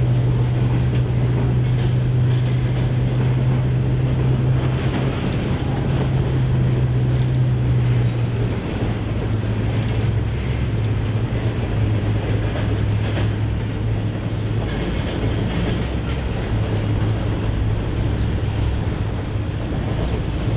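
Steady low engine drone that drops a little in pitch and becomes uneven about eight seconds in. Under it is the faint clatter of loaded coal hoppers rolling across a steel swing bridge.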